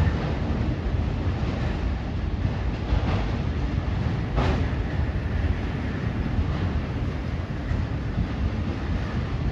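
CSX freight train cars rolling past with a steady rumble and rattle, and one louder knock about four and a half seconds in.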